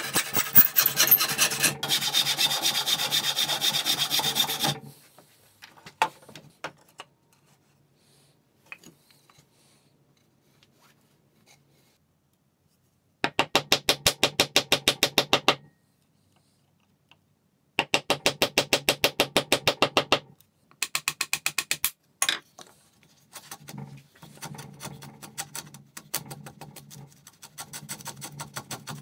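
Backsaw cutting oak, a dense rasping of quick strokes for about five seconds. After a quiet pause with a few small ticks come three short spells of fast, evenly spaced strokes. Near the end there is the softer, uneven scraping of a hand router plane shaving the tenon.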